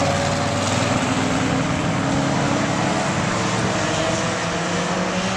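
Several low-budget endurance race cars driving through a chicane, their engines running together in a steady blend of overlapping engine notes.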